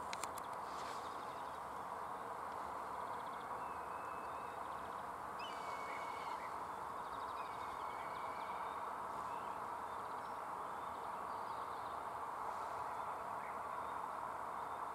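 Black kite calling: several thin, wavering whistled calls in the middle of the stretch, some falling in steps, over a steady background hiss.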